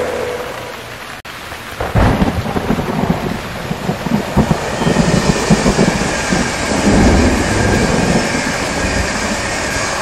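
Rain falling while a passenger train passes close by: a low, uneven rumble starts suddenly about two seconds in over the hiss of rain, and a steady high whine joins about halfway.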